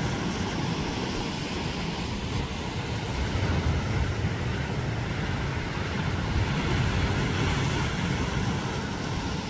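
Wind buffeting the microphone on a high, exposed spot, a steady low rumble that rises and falls with the gusts.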